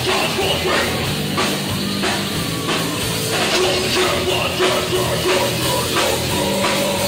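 Live hardcore metal band playing loud, with distorted electric guitars and a drum kit hitting in a steady beat.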